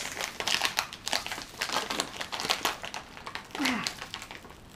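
Resealable plastic candy pouch crinkling and crackling in irregular bursts as it is pulled and twisted by hand, its stubborn zip seal refusing to tear open.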